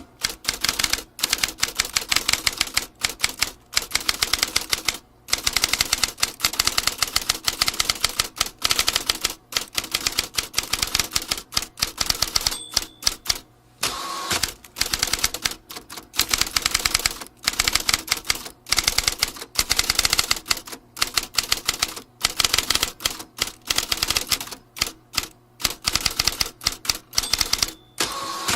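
Vintage typewriter being typed on: rapid runs of key strikes with short pauses between them, and a brief ringing tone about halfway through.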